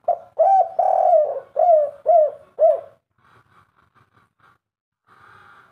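Spotted dove cooing one song phrase of about six low coos, a long held note in the middle followed by three short falling coos at the end, the 'kuk 3' ending prized by keepers.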